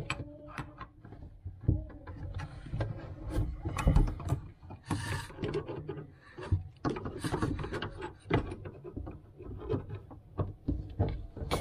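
Irregular knocks, clicks and scraping of a spanner and tools working under a kitchen sink, tightening the new tap's flexible hose connectors onto the isolation valves.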